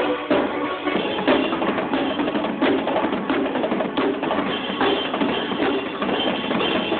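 A drum kit played in a steady run of hits over music that also holds pitched instruments.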